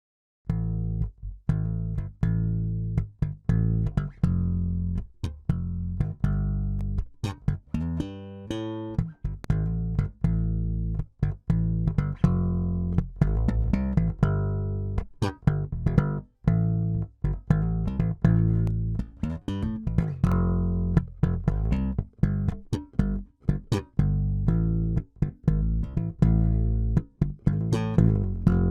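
Solo electric bass guitar playing a line of short plucked notes, with brief gaps between them.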